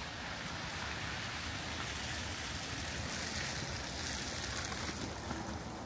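Tyres hissing on a wet, slushy street as a car passes, swelling in the middle and easing near the end.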